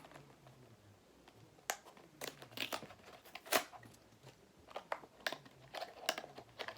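Packaging of a charging cable being opened by hand: irregular crinkling, tearing and sharp clicks, quiet for about the first second and a half and then coming in a string of bursts.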